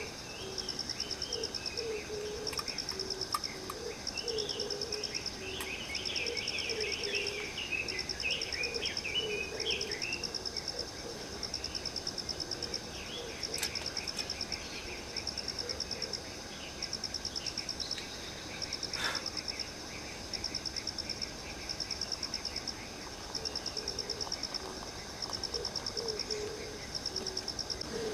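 Insects chirping in a steady pulsing trill that repeats about every second and a half, with birds twittering during the first ten seconds or so.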